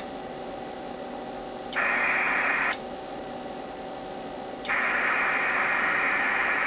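Icom IC-718 HF transceiver's receiver hiss from its speaker, cutting out and coming back twice with a sharp click at each switch, as the rig is keyed and unkeyed between transmit and receive. A faint steady tone runs underneath.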